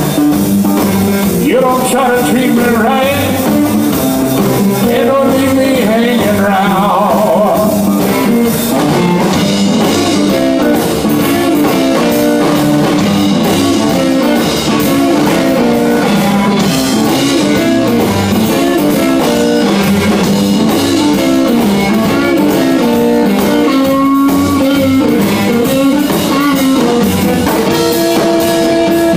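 Live electric blues played by a small band: electric guitar over a steady groove of bass and drum kit, with some bending guitar notes.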